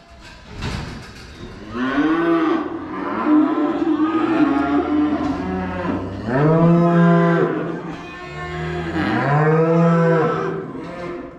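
Cattle mooing in a shed: about four long, drawn-out moos one after another, starting about two seconds in.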